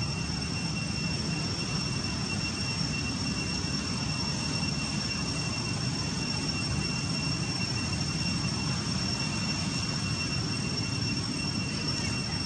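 Steady low background rumble with a constant thin high-pitched whine over it, unchanging throughout.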